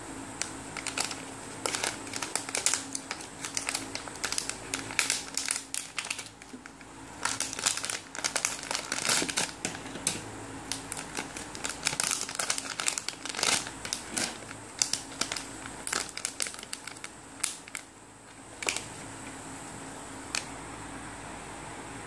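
Plastic and foil packaging bags crinkling and crackling as hands handle and open them, in irregular bursts of crackles that stop near the end.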